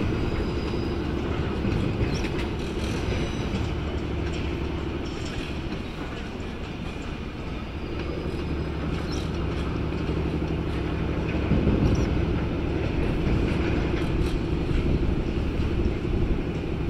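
Train running through the station: a steady rumble with a low hum and a few faint clicks, louder about twelve seconds in.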